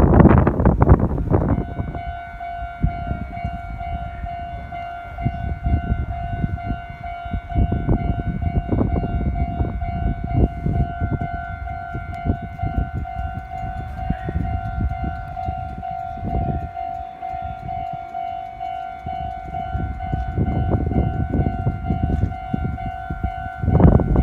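Level-crossing warning signal sounding without a break: a steady high tone with overtones that starts about a second and a half in. A low rumble runs underneath, and a much louder rumble starts just before the end.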